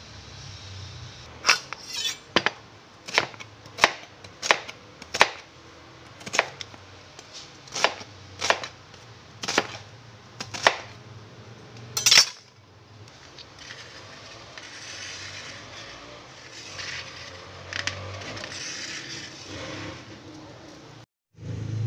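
Large kitchen knife chopping ginger and then red onion on a plastic cutting board: about fourteen sharp knocks of the blade on the board, spaced roughly half a second to a second apart, stopping about twelve seconds in. After that come softer, quieter handling and scraping sounds.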